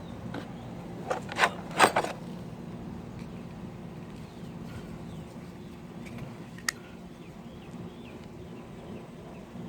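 A handful of sharp knocks and clacks of hand tools being handled in a tool box, bunched in the first two seconds, then a single sharp click later on.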